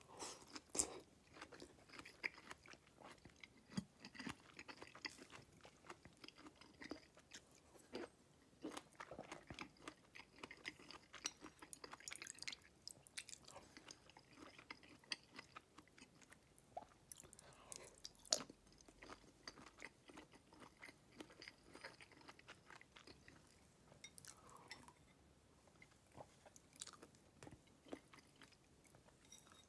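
Quiet, close-up chewing of sausage and boiled vegetables from a soup, with irregular small crunches and clicks. Two sharper clicks stand out, about a second in and a little past the middle.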